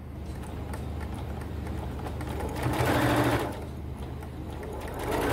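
Electric domestic sewing machine stitching through layered cotton fabric in two short runs, one about halfway through and another starting near the end.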